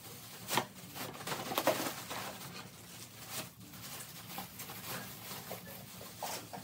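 Plastic shopping bag rustling and crinkling as hands dig through it, with a few sharper crackles.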